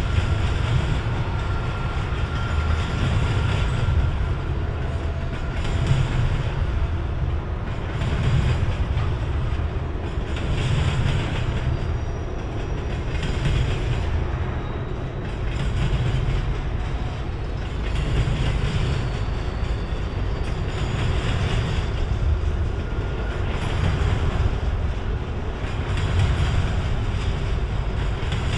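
Freight train of double-stack container cars rolling past close by: a steady low rumble of wheels on rail, swelling into a clatter about every two and a half seconds as each car's wheels go by.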